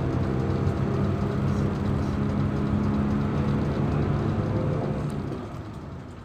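Mercedes-Benz diesel engine of a coach bus running steadily with a low drone. The sound fades away near the end.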